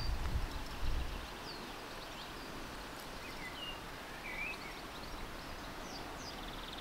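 Outdoor ambience: scattered short bird chirps over a steady background hiss, with a low rumble for about the first second.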